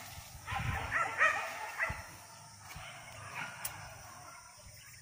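Leashed hunting dogs yipping: a quick run of short, high yips in the first two seconds, then only fainter sounds.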